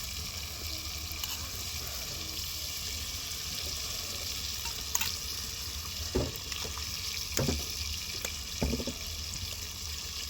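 A steady sizzling hiss, with a few sharp knocks in the second half.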